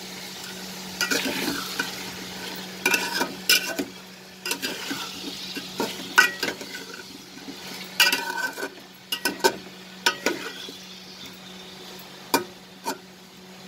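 Chicken, small potatoes and tomatoes sizzling as they fry in a metal pot, while a metal spatula scrapes and knocks against the pot in irregular clusters of strokes as the food is stirred. A faint steady hum runs underneath.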